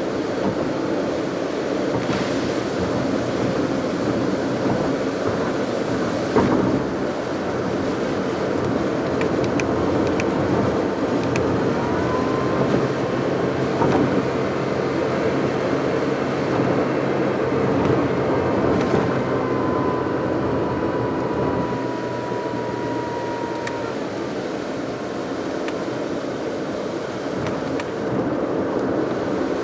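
Car driving on a wet road: steady tyre and road noise with a low engine hum, and a few light knocks. A faint thin whine holds for about ten seconds in the middle.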